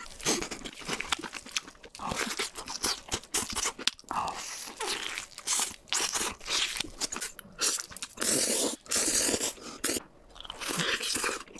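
Close-miked eating sounds: repeated crunching bites into fried chicken coating, with chewing in between.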